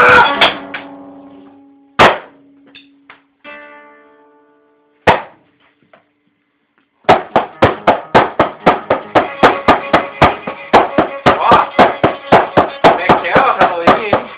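Noise-grind band recording: a distorted guitar chord cuts off and rings out fading, with two isolated sharp hits and a short pause. About seven seconds in, a fast drum beat of about five hits a second starts under dense distorted guitar.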